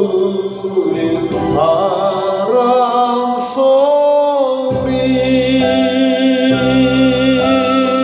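A solo singer holding long notes with wide vibrato into a handheld microphone, over a backing track of bass and keyboard. The bass drops out for a moment and comes back in about halfway through, under the final long held note.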